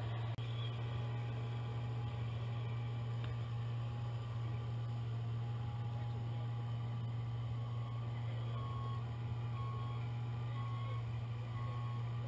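Radio-controlled model truck sound module playing a steady low engine hum. About eight seconds in, a reversing beeper starts, beeping about twice a second.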